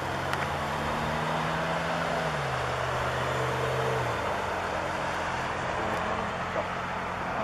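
A motor running steadily, its low hum dropping in pitch about two seconds in and again about four seconds in, over a steady rushing noise.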